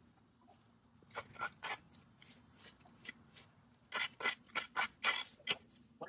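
Leaf rake scraping over dirt and dry grass debris in short strokes: a few about a second in, then a quicker run of scrapes in the last two seconds.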